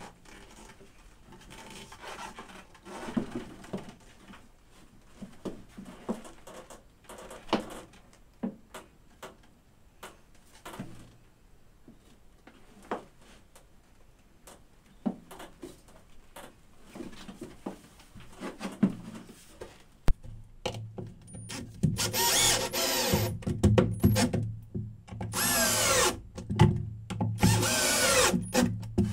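Scattered knocks and scrapes as the fibreglass console is handled and set down onto its base. Then, about two-thirds of the way through, a cordless drill drives number 10 flathead screws in several runs of a second or two each, the loudest sound here.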